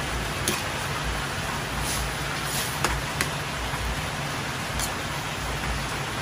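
A pan of pork and pechay broth simmering over a gas burner, giving a steady hiss, with a few light clicks of a metal ladle against the stainless pan as it is stirred.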